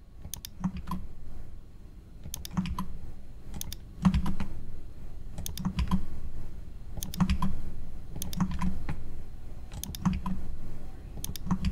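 Computer keyboard keys tapped in short groups of a few strokes, a group about every second or so, as dollar signs are typed into the cell references of a spreadsheet formula.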